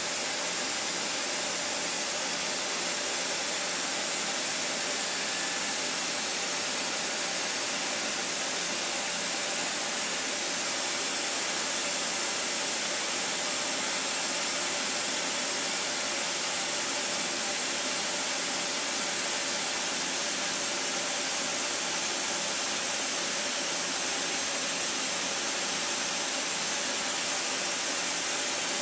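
CNC milling machine contour-milling a copper electrode with small carbide end mills: a steady, even hiss that carries most of its energy high up and does not change.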